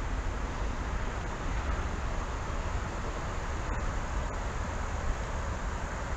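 Steady outdoor noise dominated by wind buffeting the microphone, a fluttering low rumble with a hiss above it.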